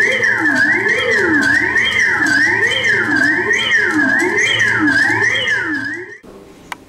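Electronic warbling tones sliding up and down in pitch about twice a second, a low and a high layer together over a steady low hum. The sound cuts off suddenly about six seconds in, leaving only a short blip.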